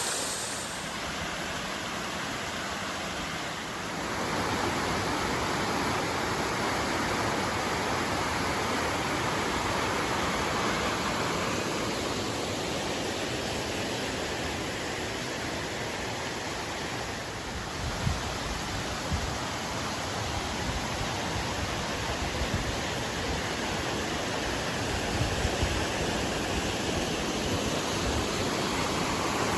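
Waterfall rushing steadily, getting louder about four seconds in. A few faint knocks come about two-thirds of the way through.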